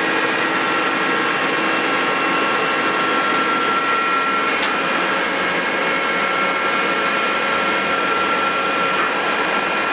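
Mori Seiki NL1500 CNC lathe running with a steady machine hum and whine, with a faint click about halfway through.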